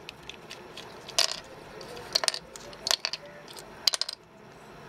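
Plastic pieces of an opened 3x3 Rubik's Cube clicking and clacking as they are handled, with several sharp clicks about a second apart.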